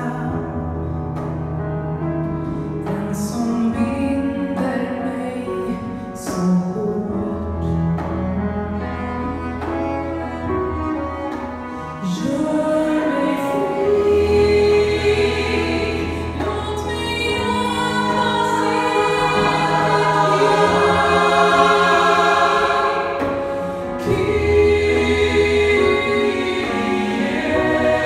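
A female soloist sings a slow, sacred Swedish song over long, low cello notes and piano. The music grows louder and fuller about halfway through, with choir voices in the texture.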